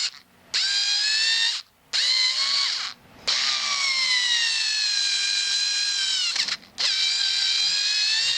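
Drill Master 4.8 volt cordless screwdriver's motor whining as it works a screw into pallet wood, in four runs with short stops between them. In the long middle run the pitch slowly sinks as the small motor bogs down under load.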